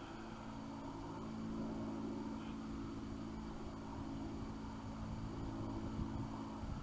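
A steady low engine-like hum, faint and unbroken, with no gunshot in it.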